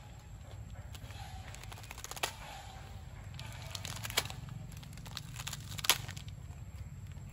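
A macaque eating dry packaged instant noodles: scattered sharp crackles and snaps from the brittle noodles and the plastic packet, the loudest about two, four and six seconds in, over a steady low rumble.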